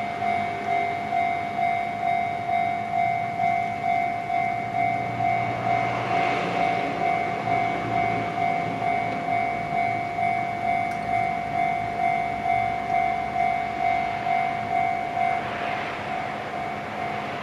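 Japanese railway level-crossing warning alarm ringing its electronic 'kan-kan' bell, a little under two strikes a second, steady throughout. A rushing noise swells briefly twice beneath it.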